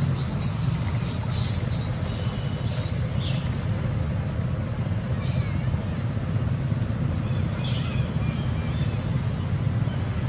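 A steady low rumble throughout, with a quick run of high-pitched animal squeals in the first three seconds or so and two more short high calls later.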